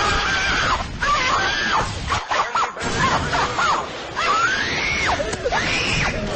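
High-pitched screeching cries, several in a row, each sliding up and down in pitch, over a loud rough noise.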